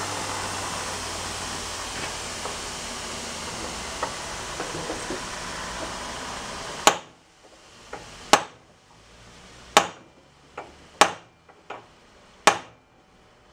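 Hammer blows driving a brass punch against a stuck drive pulley on a snowblower engine shaft: about five sharp metal strikes roughly a second and a half apart, with a few lighter taps between, starting about halfway through. Before them a steady machine whir runs and then stops.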